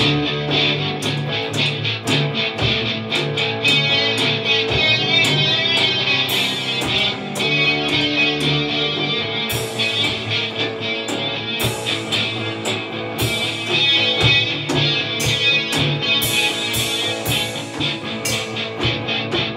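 Instrumental 1960s-style rock played live on two electric guitars, one a Stratocaster-style guitar, and a Gretsch drum kit. The guitars ring out over a steady drum beat, with cymbal crashes coming more often in the second half.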